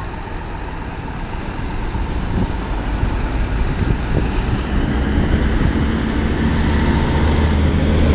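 Scania truck's diesel engine approaching, its low drone growing steadily louder.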